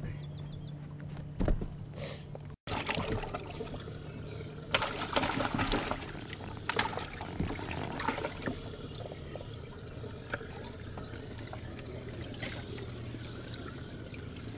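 Water sloshing and trickling in a bass boat's live well as a large largemouth bass is lowered in and handled, with a few louder splashes from about five to eight seconds in, over a steady low hum.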